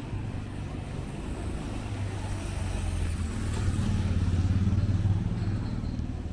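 Street traffic: a motor vehicle's engine running close by, growing louder about four seconds in and easing off near the end.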